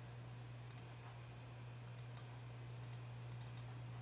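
Computer mouse clicks: several short, faint clicks, some in quick pairs, mostly in the second half, over a steady low electrical hum.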